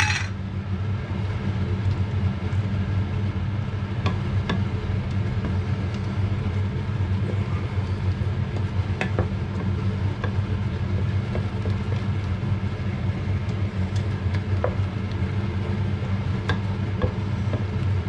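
A steady low hum with a wooden spoon stirring thick semolina halva in a stainless steel pot. The spoon gives scattered scrapes and knocks against the pot.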